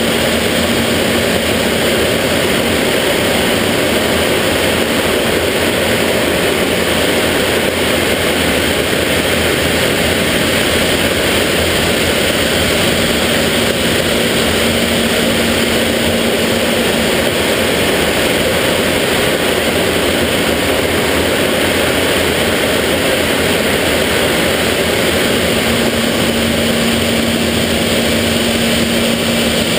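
BAC Jet Provost's single Viper turbojet running steadily, heard inside the cockpit as a constant dense rush of engine and air noise. A faint steady hum comes and goes in it.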